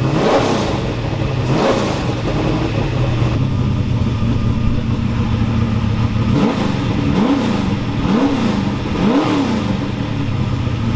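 Carbureted race truck engine idling and revved in about six quick blips, each rising and falling back, the throttle worked by a zip tie in place of the cable. It doesn't sound that great, which the crew puts down to jetting and timing.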